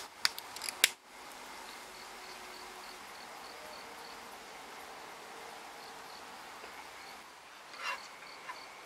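Crickets chirping steadily at night, an even pulse of about three chirps a second. A few sharp clicks come in the first second, and there is a short clatter near the end.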